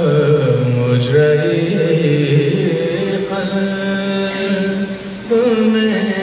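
Unaccompanied male voices chanting a marsiya, the Urdu elegy for Muharram, in long held, slowly wavering notes: a lead voice with other voices sounding with it. A short dip about five seconds in, then the held notes resume.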